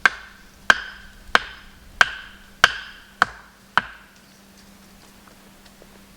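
Seven sharp chopping strikes on wood, about one and a half a second, each with a short ringing tone; they stop about four seconds in.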